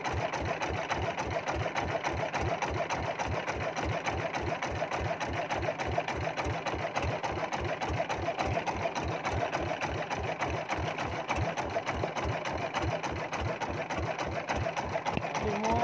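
Small fishing boat's engine running steadily at low trolling speed: a rapid, even putt-putt of about five beats a second.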